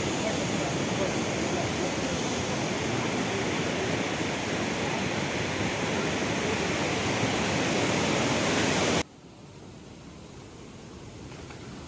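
Waterfall rushing: a steady, loud hiss of falling water. About nine seconds in it cuts off abruptly, leaving a much quieter, soft hiss.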